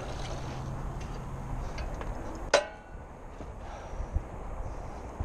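A single sharp metallic clink with a short ringing tail about halfway through, over a faint low hum that fades out before it.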